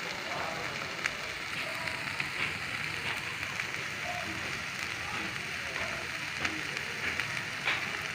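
Corned beef frying in butter in a pan: a steady sizzle with scattered sharp pops and crackles.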